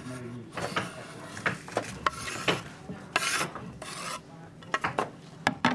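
Curry paste being ground: uneven rasping and rubbing strokes, with a few sharper scrapes about five seconds in.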